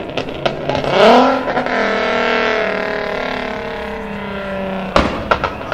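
A sports car engine revs up sharply about a second in, then runs at a high, steady note that slowly falls away. A single sharp crack comes near the end.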